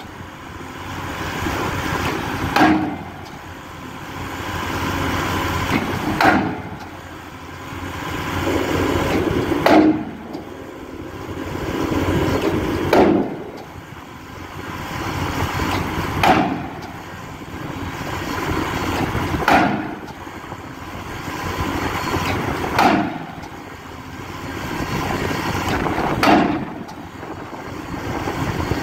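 A 16-ton hydraulic impact hammer driving a steel pile casing, striking a heavy metallic blow about every three and a half seconds, eight blows in all. Between the blows a machine noise swells up and drops away again.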